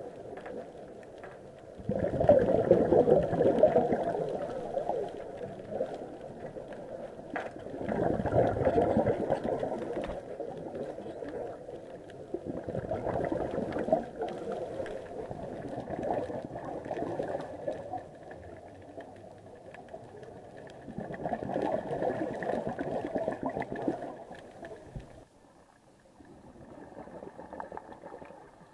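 Scuba diver's exhaled bubbles from a regulator, heard underwater: several rushes a few seconds long, coming about every five or six seconds, with faint clicks and crackle between.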